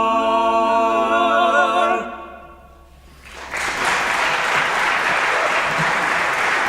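An a cappella vocal quartet holds the final chord of the song with vibrato, and the chord dies away about two seconds in. After a short pause an audience starts applauding, and the applause carries on steadily.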